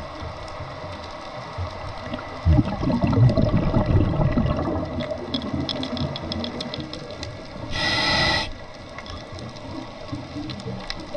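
Scuba diver breathing through a regulator underwater: a burst of exhaled bubbles rumbles out for about three seconds, then a short hiss of the regulator comes near the end. A faint, steady crackle of fine clicks runs underneath.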